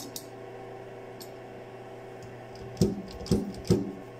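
Three short, loud scraping strokes about half a second apart as a hand-worked boring bar with a 3/16 in HSS bit shaves a keyway in steel, over a steady hum. The bit is taking too big a bite.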